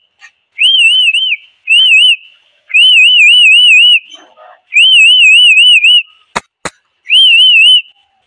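A whistle blown in five warbling blasts, its pitch wobbling up and down about four times a second, sounded as a call to bring animals in for feeding. Two sharp clicks fall between the last two blasts.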